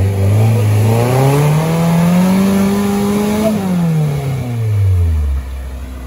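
Off-road vehicle's engine revving: the pitch climbs steadily for about two seconds, holds, then falls back to idle about five seconds in.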